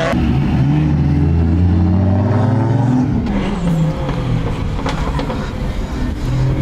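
Drift car engine at high revs, its pitch climbing steadily for about three seconds and then breaking off. Engine noise continues more unevenly through the rest.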